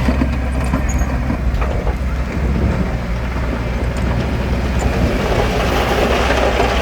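Heavy construction machine's diesel engine running steadily under load, a deep constant drone with a few faint metallic clicks; the noise grows fuller about five seconds in.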